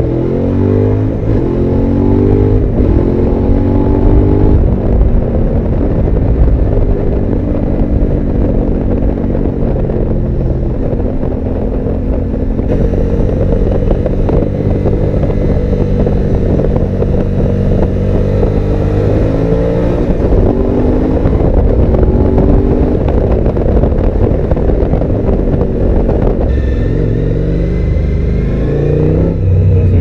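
Suzuki V-Strom 1000 XT's 90-degree V-twin breathing through an Akrapovič exhaust under way. It pulls up through several gears with the pitch climbing in the first few seconds, then runs at a steady cruise with wind noise in the middle, and eases off near the end.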